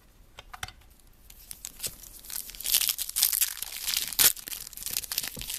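Wrapper of a 2013 Topps football card pack being torn open and crinkled, starting about two seconds in, with many sharp crackles.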